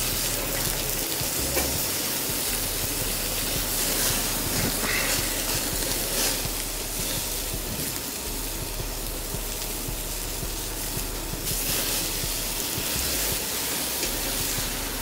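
Chicken thighs sizzling over hot charcoal on a Weber kettle grill, a steady hiss, with fat dripping onto the coals and flaring up as the skin is singed and charred.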